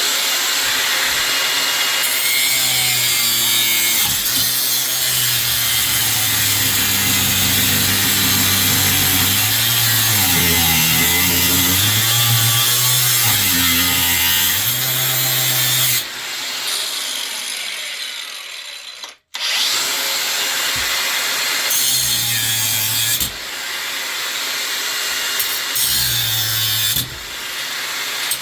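Power cutting tool cutting through the metal of a ceiling fan's motor assembly. It runs steadily under load, its hum rising and falling as it bites. It stops for a moment about two-thirds of the way in, then carries on cutting.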